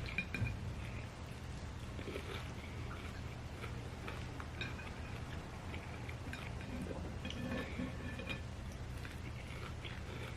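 Close-miked eating sounds: chewing with small wet clicks and smacks of the mouth, scattered unevenly, over a steady low hum.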